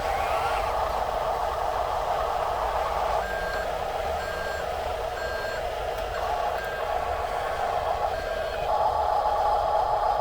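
Radio-controlled toy truck running: a steady whine from its small electric motor and gears. In the middle comes a run of about six short reversing beeps.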